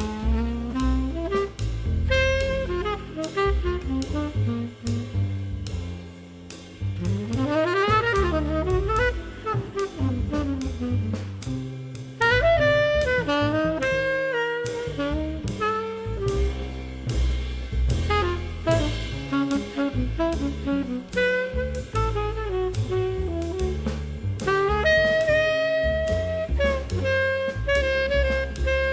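Background jazz music: a saxophone melody over bass and a drum kit with a steady beat.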